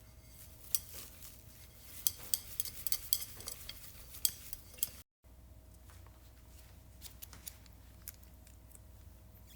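Kitchen utensils clinking against dishes: a quick run of sharp light clicks and taps, then, after a brief cut to silence about five seconds in, fainter scattered taps.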